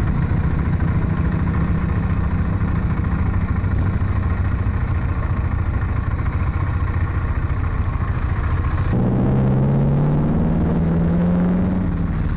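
BMW motorcycle engine running on the road, mixed with heavy wind rush. About nine seconds in, the wind noise drops away suddenly and a steadier engine hum comes forward, its pitch rising slightly.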